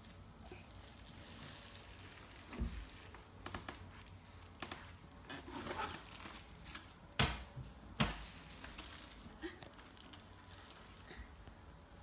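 A crawling baby's hands slapping and patting on a rug and hardwood floor: a few sharp slaps with soft rustling in between.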